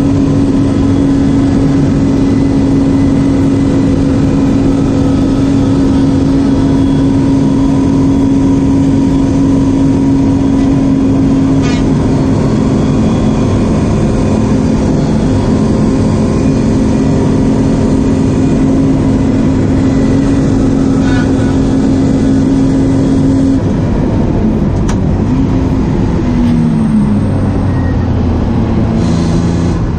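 BMW E36 328i's 2.8-litre straight-six heard from inside the cabin at full throttle, holding a steady high note with a heavy wash of road and wind noise. About six seconds from the end the note drops away and goes through short falling and rising glides, as when lifting off and changing down for a corner, then picks up again.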